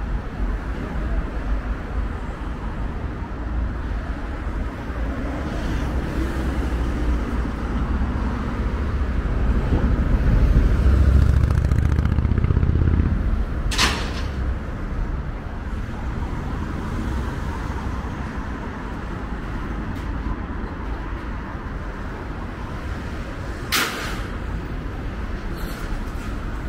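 Steady road traffic on a busy city street, heard from the sidewalk. A large vehicle's low rumble swells and passes about ten to thirteen seconds in. Two brief, sharp hisses come about ten seconds apart.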